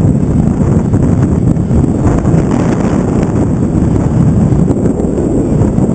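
Heavy wind buffeting the microphone of a camera on the bow of a motorboat under way, a steady, gusting rumble over the sound of the boat moving across the water.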